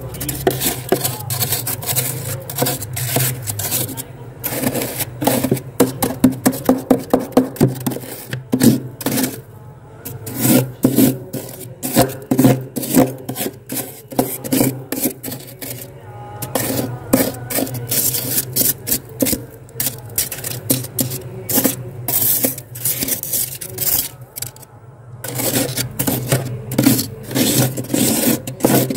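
Kitchen knife scraping thick, soft frost off the inside walls of a freezer: short rasping strokes in quick runs, about four a second at their fastest, with brief pauses between runs.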